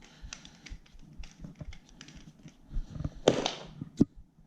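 Handling noises from working on the scooter's tyre valve with the pump and extension hose: scattered small clicks and taps, a louder scraping burst about three seconds in, and a sharp click just after four seconds.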